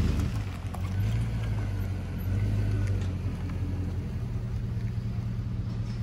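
Lifted Chevrolet Tahoe's V8 engine running at low revs as the truck pulls away, a steady deep exhaust note that swells a little about a second in.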